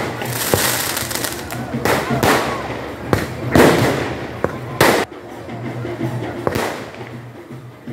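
Fireworks and firecrackers going off: a series of loud, sharp bangs with crackling sparkle between them.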